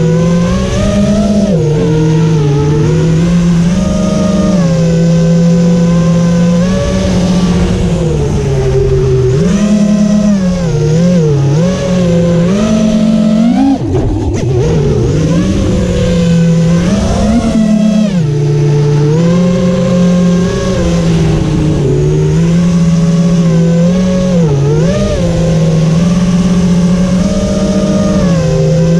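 FPV quadcopter's brushless motors and propellers whining, heard from the GoPro mounted on the drone: a steady pitch that dips and surges sharply several times as the throttle is cut and punched during flips and turns, with the biggest drop and climb about halfway through.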